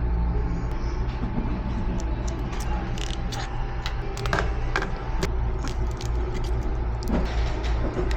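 Scattered light clicks and taps of small repair tools on an opened iPhone, over a steady low hum.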